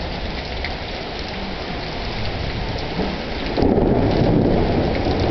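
Heavy rain pouring steadily. About three and a half seconds in, a rumble of thunder comes in and grows louder.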